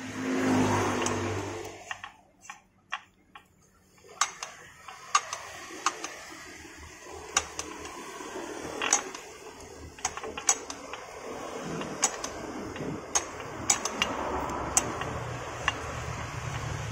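Steel thread tap being turned by hand to re-cut the stripped M10 x 1.25 internal thread of a scooter's exhaust-mount bolt hole, turning stiffly. It gives irregular sharp metallic clicks over a steady low scraping, after a louder rush of noise in the first two seconds.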